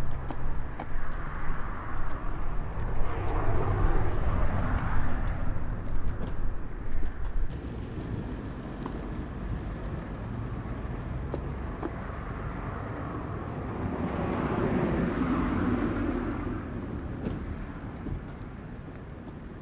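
Street traffic over a steady low rumble: a car passes early on, rising and fading, and another passes about two-thirds of the way through. The recording's tone changes abruptly about a third of the way in.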